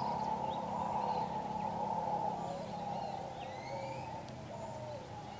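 Mantled howler monkeys roaring in a drawn-out chorus that eases off after about two seconds, with small birds chirping over it.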